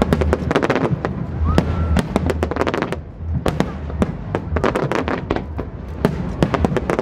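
Aerial fireworks shells bursting in a rapid series of bangs and crackles, with a short lull about three seconds in before the bursts pick up again.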